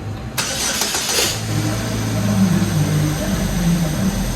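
GM 2.4L Ecotec inline-four being started for the first time after its timing chain, balance chain and water pump were replaced. There is a short burst of cranking about half a second in, then the engine catches and runs steadily.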